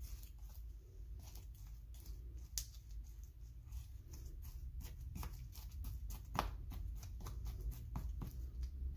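Metal palette knife mixing thick acrylic paint: irregular wet, sticky clicks and smacks as the paint is pressed, folded and scraped, growing busier in the second half, with one sharper smack a little past six seconds in.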